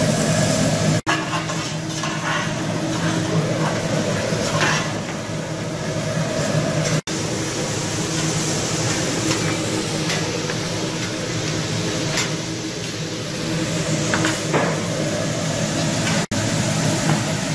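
Food sizzling on a teppanyaki griddle, with a hibachi chef's metal spatula scraping and tapping on the steel, over a steady background hum. The sound cuts out for an instant three times.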